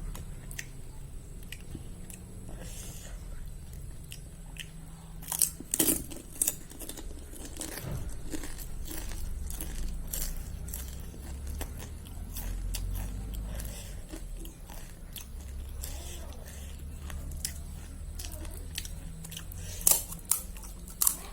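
Crisp golgappa (pani puri) shells crunching as they are bitten, with chewing in between; the loudest crunches come in a cluster about five to six seconds in and again near the end.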